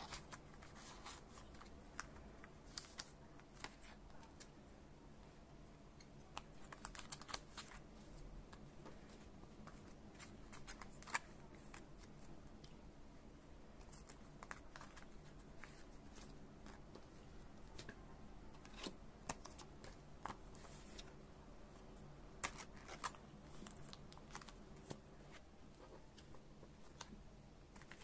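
Faint, scattered light clicks and crinkles of thin clear plastic sleeves handled while photocards are slid into them.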